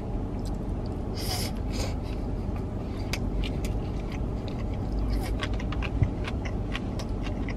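Chewing a mouthful of poke, with scattered light clicks of chopsticks against a plastic bowl, over a steady low background hum.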